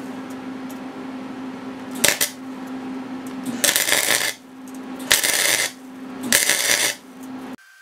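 Flux-core wire-feed welder tack-welding rusty steel: a brief crackle of arc about two seconds in, then three crackling bursts of under a second each, over a steady hum.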